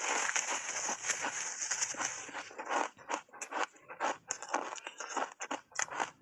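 Frozen ice bars coated in matcha tea powder being bitten and chewed: a dense crackling crunch for the first two seconds or so, then a run of sharp, separate crunches.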